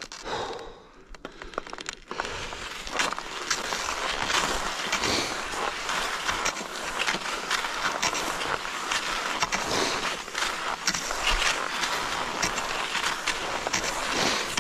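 Cross-country skis sliding and scraping along groomed classic tracks in snow, with short clicks and crunches from the stride and pole plants; quieter for about the first two seconds.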